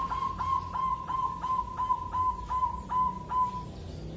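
Zebra dove (perkutut) cooing: a run of short, clear coos at one pitch, about four a second, that stops a little before the end.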